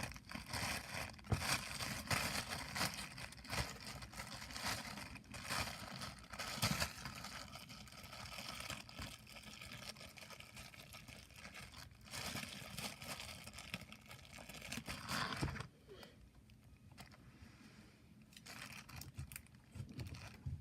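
Slime being squished and stretched by hand, with an irregular sticky crackling and clicking. It goes much quieter for the last few seconds.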